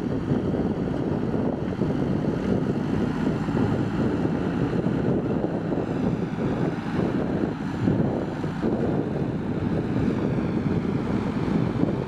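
JCB backhoe loader's diesel engine running steadily as the machine works in mud.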